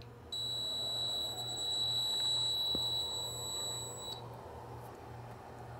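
A rack server's electronic buzzer gives one steady high-pitched beep as it is powered on; the beep starts a moment in, holds for nearly four seconds and cuts off sharply. Faint steady fan noise from the server's small power-supply fans runs beneath it.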